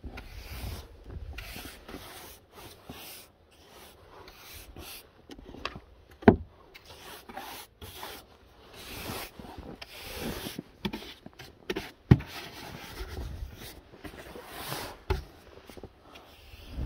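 Snow brush sweeping snow off a car's windows and bodywork in repeated short swishing strokes. Two sharp knocks come about six and twelve seconds in.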